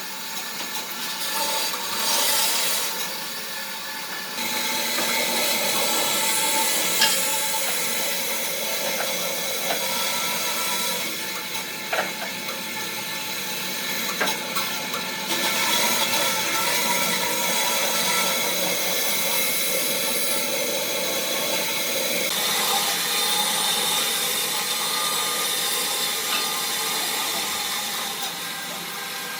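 A power tool working on wood: a steady motor whine over rough cutting and rubbing noise, with a few sharp clicks. The sound shifts abruptly a few times.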